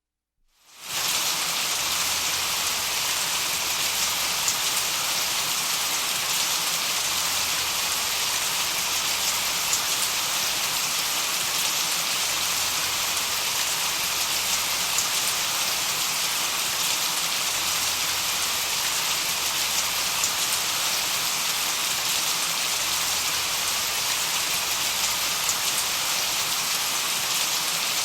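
Steady hissing noise like heavy rain, strongest in the high range, fading in over the first second and then holding even. It is a masking sound for tinnitus.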